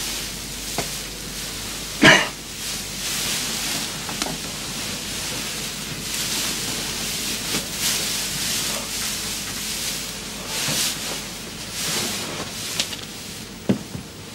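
Straw-filled canvas palliasses rustling and crunching as a man pushes and crawls out from under a pile of them, with a few knocks and thumps; the loudest comes about two seconds in.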